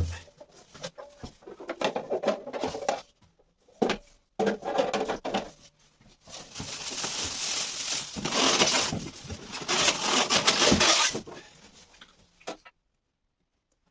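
Band saw parts and packaging being handled: irregular knocks, clatter and a longer stretch of rustling and scraping, cutting off suddenly near the end.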